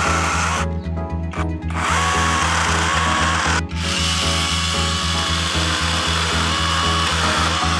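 Garland Rodent cordless mini pruning chainsaw running and cutting through tree branches, with short breaks in the saw noise about a second in and again about halfway through. A music track with a steady bass beat plays under it.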